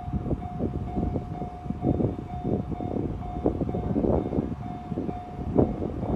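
Japanese level crossing's electronic warning bell ringing in a steady repeating beat, about two strokes a second, while a train runs past with a low rumble and irregular clattering of wheels on the rails.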